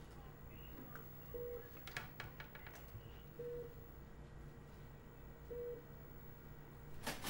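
Bedside patient monitor beeping: three short, single mid-pitched beeps about two seconds apart over a low steady hum, with a few faint clicks about two seconds in and a sharper click near the end.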